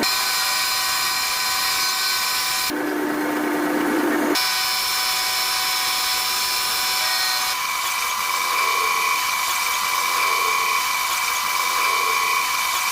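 Electric power tool running with a steady high whine. About three seconds in, its tone turns lower and duller for about a second and a half, then returns. Its tone shifts again a little past halfway.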